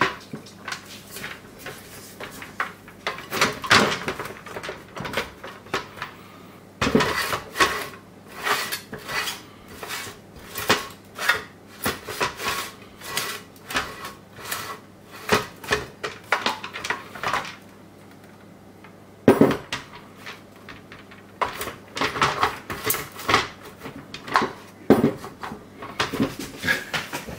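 Hard plastic clicking and knocking as the halves of a Bosch Vario Perfect Serie 8 washing-machine door frame, with its glass porthole, are handled and pressed together so the lugs snap into place. The clatter is irregular, with a brief lull a little past halfway.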